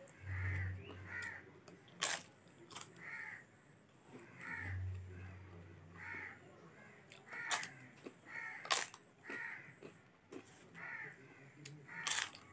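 Crisp roasted papad bitten and crunched: several sharp crunches spaced a second or more apart, the loudest near the middle. Behind them a bird calls over and over in short calls.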